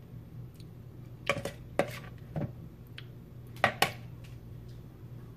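A metal spoon clinking and tapping against a mixing bowl and countertop: about six sharp, separate clinks, the loudest two close together a little past the middle, over a steady low hum.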